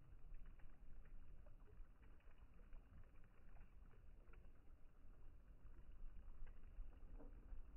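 Near silence: faint lakeside ambience, a steady low rumble with light scattered ticks of small water movement at the shore.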